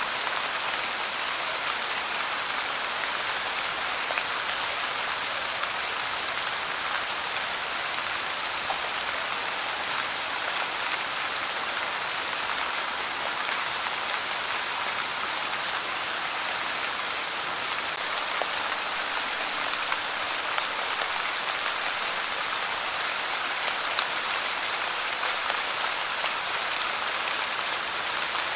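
Light rain falling steadily: an even hiss of many small drops, with an occasional slightly louder drop standing out.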